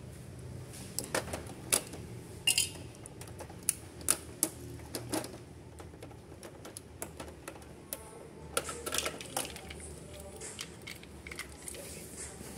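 Irregular sharp plastic clicks and taps from an Epson L360's print head carriage as the white ink damper block with its ink tubes is worked loose and lifted out. There is a busier run of clicks about nine seconds in.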